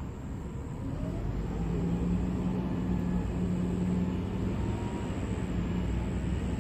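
A steady low engine hum with rumble beneath it, growing louder about a second and a half in and holding, from an unseen motor vehicle or aircraft.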